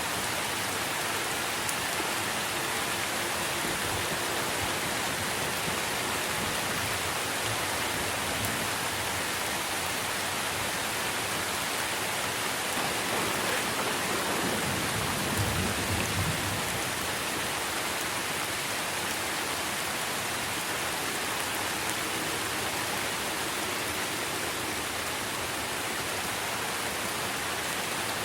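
Steady heavy rain falling on trees and leaves. About halfway through, a low rumble of thunder swells and fades over a few seconds.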